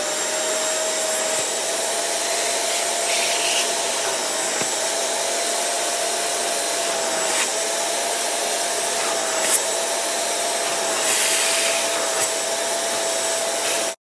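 Carpet extractor's vacuum motor running as its hand tool sucks the cleaning water out of a carpet floor mat: a steady rushing suction noise with a constant whine.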